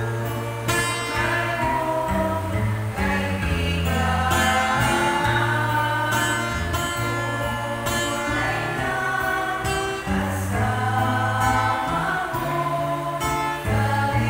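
A small group of women singing a Tagalog gospel song together over instrumental accompaniment, with sustained bass notes that change every second or two.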